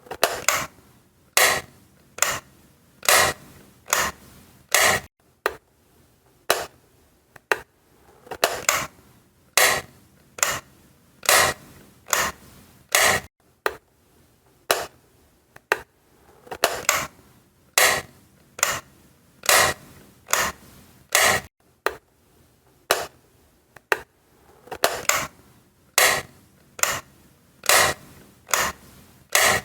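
Light switch being clicked on and off over and over, a sharp click about once a second, some coming in quick pairs.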